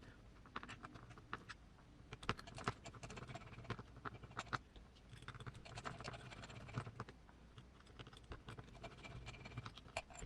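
Faint, irregular light clicks and taps of a small metal RC crawler portal axle and tools being handled as it is worked on by hand.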